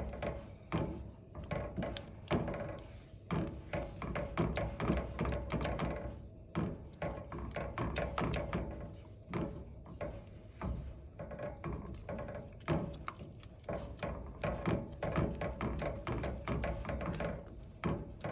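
Stirring utensil knocking and scraping against a pan while it works a thick chocolate mixture of cocoa powder, ghee and condensed milk. The knocks are irregular, several a second, without let-up.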